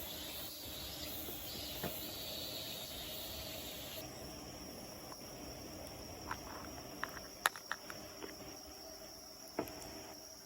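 Faint chorus of insects trilling. About four seconds in, the sound changes abruptly to one steady, high-pitched trill, and a few sharp clicks or knocks come in the second half.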